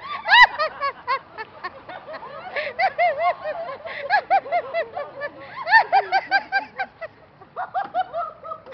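High-pitched laughter in long runs of quick, repeated bursts, with a brief break about seven seconds in. A sharp knock sounds about half a second in.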